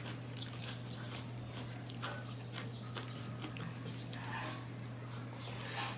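People eating a meal of khichuri: irregular chewing, lip-smacking and small clicks, over a steady low hum.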